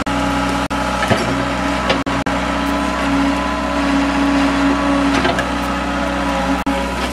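Hydraulic excavator's diesel engine running steadily while the bucket digs soil, with a few slight changes in pitch. The sound is broken by several very brief dropouts.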